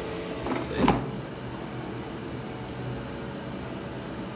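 Air fryer basket being pulled out of the air fryer: a steady hum stops, then a single clunk about a second in as the basket comes free.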